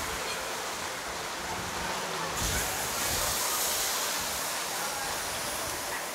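City street ambience: a steady wash of noise, with a low rumble swelling about two and a half seconds in.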